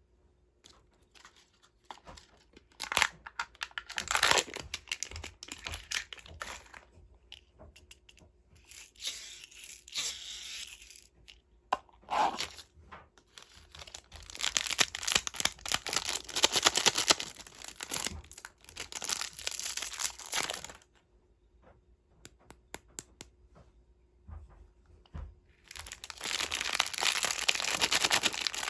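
Candy wrappers being torn open and crinkled, in several bursts of crackly tearing with short pauses between.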